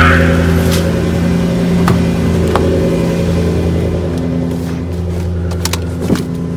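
Toyota Celsior's 4.3-litre V8 idling steadily on a cold start, breathing through a straight-through mid-pipe exhaust. A few light clicks and knocks sound over it.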